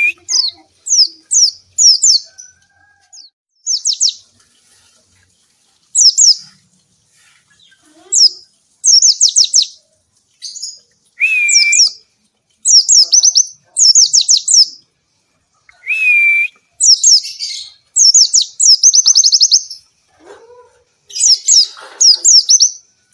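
White-eye (pleci) singing in rapid bursts: quick strings of high, thin, downward-slurred chirps, each burst about half a second to a second long, with short pauses between, and twice a lower slurred whistle.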